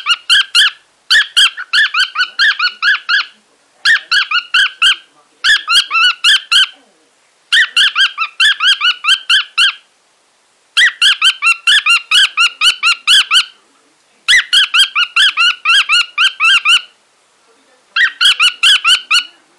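Cockatiel singing in runs of short, rapidly repeated chirping notes, about six a second. There are about eight bursts of one to three seconds each, with short pauses between them.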